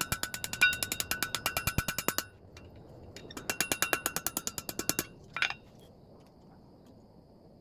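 Rapid hammer blows ringing on a steel anvil: a fast, even run of strikes lasting about two seconds, a short pause, a second run of about a second and a half, then a single clank, after which only a faint hum remains.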